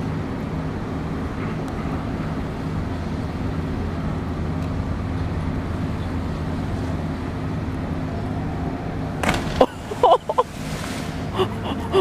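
Steady low machinery hum with a few even tones. About nine seconds in, a couple of sharp knocks are followed by a splash as a person drops into the harbour water, then short excited shouts.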